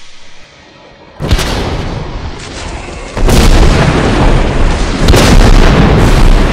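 Cinematic sound-effect booms: a sudden heavy boom about a second in, then a louder deep rumble from about three seconds in that swells again near the end, like a massive explosion.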